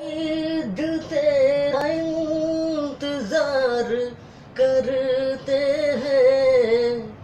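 A man singing a Hindi film song unaccompanied in a high voice, drawing out long wavering notes with brief dips in pitch, with a short break about four seconds in.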